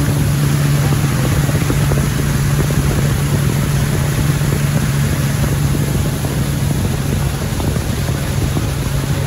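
Boat engine running steadily, a constant low hum over a heavy rushing noise of wind and water.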